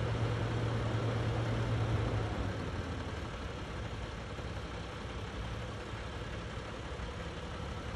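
A vehicle engine idling: a steady low hum that drops back about two seconds in, over constant background rumble and noise.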